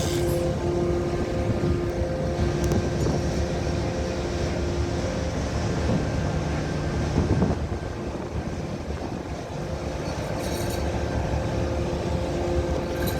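A ship's engine running with a steady low drone and a constant two-note hum, swelling briefly about halfway through.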